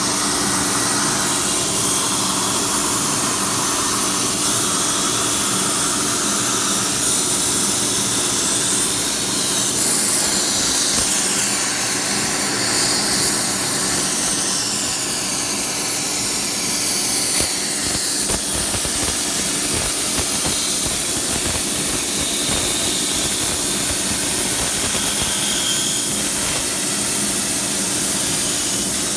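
CNC tracker torch cutting 3/8-inch steel plate: a loud, steady hiss from the cutting jet, with a low steady hum underneath.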